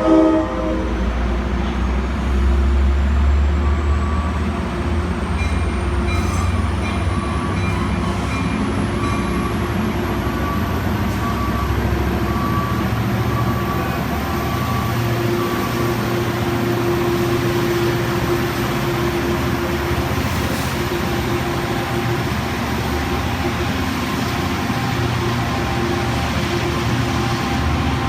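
Sounder commuter train at the platform: a diesel-hauled train running with a steady low rumble and rail noise. A train horn note cuts off about half a second in.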